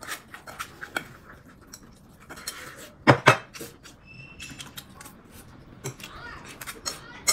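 Tableware clinking and tapping at a meal, as eating utensils knock against bowls and plates, with two louder knocks close together about three seconds in.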